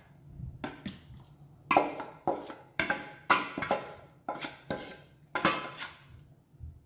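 A metal utensil clinking against cookware about ten times, sharp knocks with a ringing tail, as marinated chicken is spooned into a heavy-bottomed pan.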